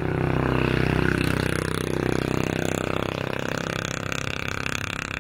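An engine running steadily: a low drone with a fast, even pulse, a little louder in the first couple of seconds.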